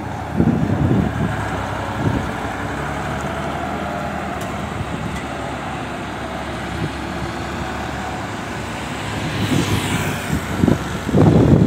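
Ford 3610 tractor's three-cylinder diesel engine running steadily under load as it pulls a heavily loaded sugarcane trolley away along the road. A motorcycle passes near the end.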